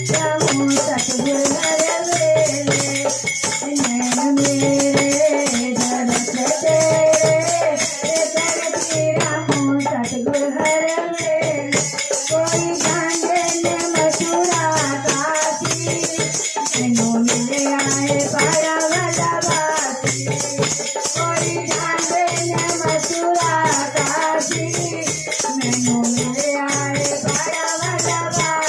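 Hindi devotional bhajan sung by women, with a dholak hand drum and a wooden kartal clapper with brass jingles shaken in a steady rhythm.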